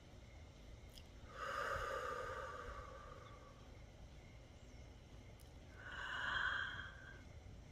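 A person breathing slowly and audibly: two long breaths, one swelling about a second and a half in and fading over two seconds, the next about six seconds in.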